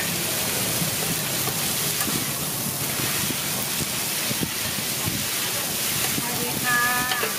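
Pad Thai noodles sizzling on a large flat iron pan, a steady frying hiss, while a metal spatula and ladle toss and scrape them with occasional light clicks of metal on the pan.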